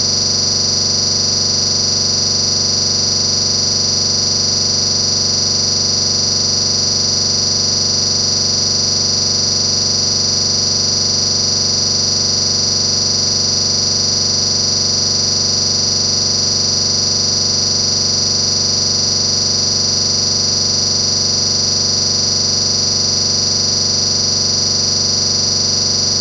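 A steady, unchanging electronic buzz: a loud high-pitched whine over a low hum, with no break or change in pitch or level.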